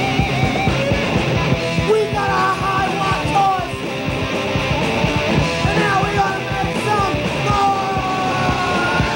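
Punk rock band playing fast and loud, with distorted electric guitar, bass and drums and yelled vocals over the top. Pitched lines bend and slide downward through much of it.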